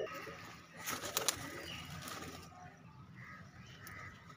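Domestic pigeons: a few sharp wing flaps about a second in, with faint cooing.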